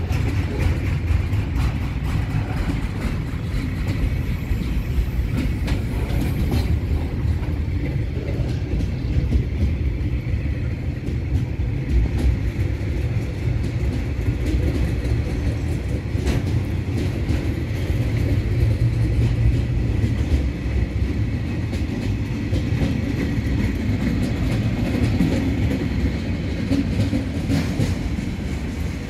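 Freight train's container and flat wagons rolling past: a steady, loud low rumble of steel wheels on rail, with occasional sharp clicks.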